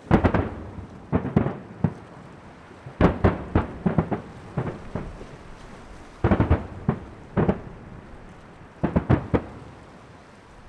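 Aerial firework shells bursting in clusters of sharp booms, about six volleys a second or two apart, each bang trailing off in a short rumble.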